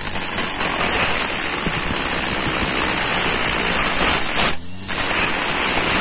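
Homemade 12-volt key cutting machine running, its small DC motor whining as the cutter wheel grinds into a brass key blank. The sound drops out briefly near the end and picks up again.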